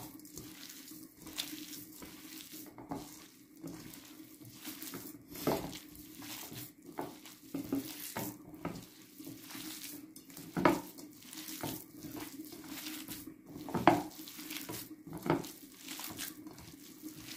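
Hands kneading raw minced meat with grated onion, rice and spices in a glass bowl: irregular wet squelching, with a few louder squelches.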